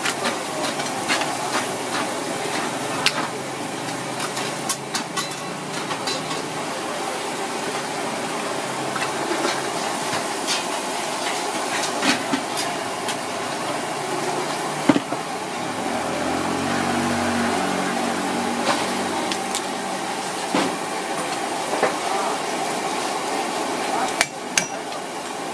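Cleaver chopping mud crabs on a wooden chopping block: scattered sharp knocks, irregularly spaced, over a steady background hiss.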